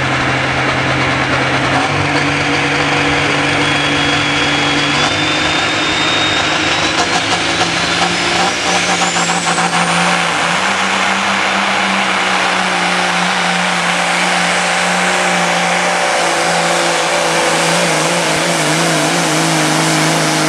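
Big-rig semi truck's diesel engine at full throttle pulling a weight-transfer sled, running loud and steady, its pitch stepping up a few times as it shifts up through the gears. A thin high whistle climbs in pitch partway through.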